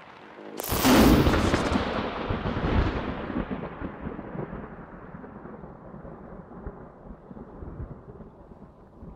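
A thunderclap: a sudden loud crack about half a second in, then a long rumble that slowly dies away.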